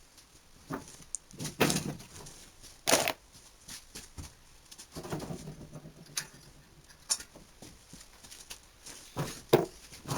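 Handling noises from work on an opened electric drill and its cord: irregular clicks and knocks with rustling in between, the sharpest knocks near the start and about three seconds in.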